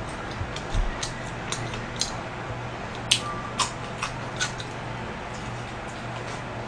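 Close-up chewing of pizza: scattered sharp mouth clicks and smacks, with a few louder crunches of crust around the middle, over a low steady hum.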